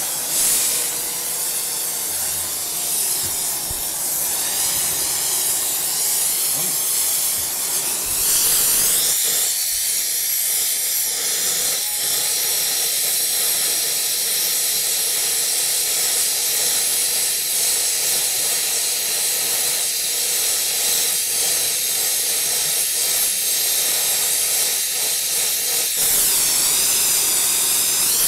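Glassworking hand torch hissing steadily as its flame heats the borosilicate glass around a broken bong joint being repaired. The hiss grows a little stronger about eight seconds in and again near the end.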